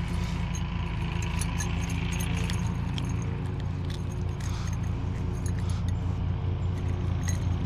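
Scattered metallic clinks and jingling as a spinnerbait's blade and hooks are handled while unhooking a chain pickerel, over a steady low hum.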